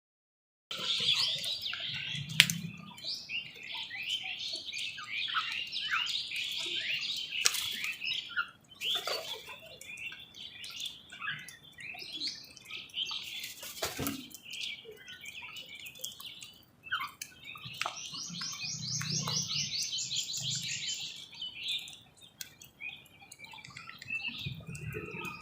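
Many birds chirping at once in a dense, overlapping chatter of short high chirps, cutting in abruptly after a moment of silence, with a fast, higher rattling trill about two-thirds of the way through.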